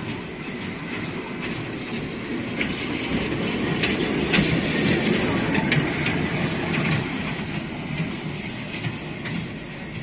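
Children's amusement-park ride train running on its small track: a steady rumble of wheels on rail with irregular clicks as the wheels pass the rail joints. It is loudest around the middle.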